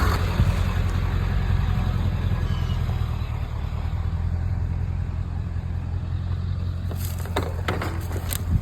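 A vehicle engine idling with a steady low rumble. About seven seconds in come a few short, sharp knocks.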